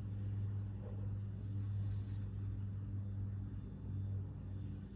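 A steady low hum with no distinct handling sounds over it.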